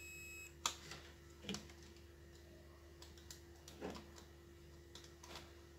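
A digital multimeter's continuity beep, a high tone lasting about half a second at the start. After it come a few scattered light clicks as the test probes are touched to solder points on the TV power supply board.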